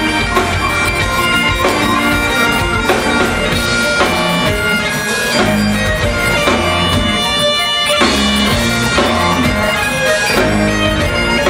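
Celtic rock band playing live: bagpipes carry the melody over electric guitars and a drum kit.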